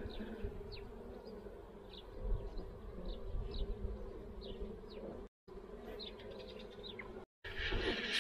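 Buckfast honeybee colony buzzing steadily from an open hive, a continuous hum. The sound cuts out briefly twice in the second half.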